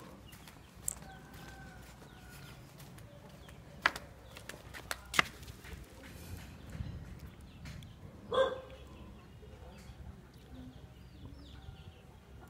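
Chickens in the background: a faint drawn-out crow about a second in and a short loud call about eight seconds in. Between them come a few sharp clicks and knocks, the loudest about four and five seconds in.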